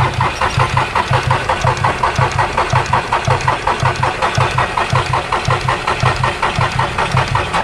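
Starter motor cranking the Volkswagen Polo's three-cylinder diesel engine in one long crank, about five compression pulses a second, without it firing. The injector connectors are unplugged, so the engine is only turned over to bleed air and draw fuel through to the injectors.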